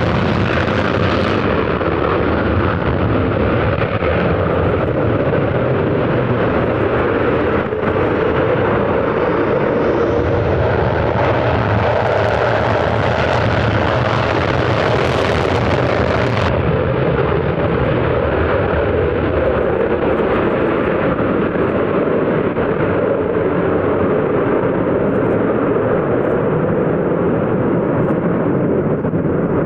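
Military jet aircraft engine noise, loud and steady throughout with no clear rise or fall.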